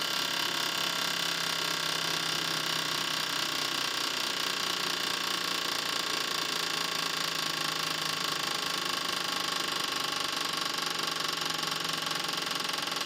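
Ultrasonic cleaner of a fuel-injector cleaning and test machine running, a steady high-pitched whine made of many held tones with no break.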